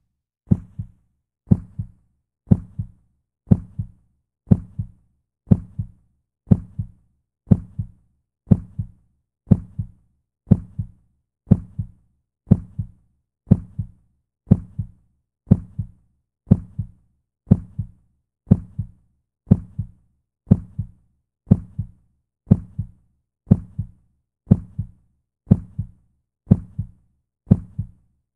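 Heartbeat: a steady, low double thump, lub-dub, repeating about once a second.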